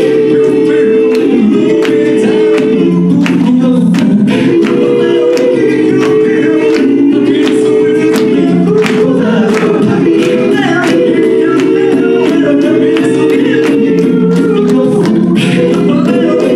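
A vocal group singing a cappella in close, sustained harmony, with sharp percussive hits running through it.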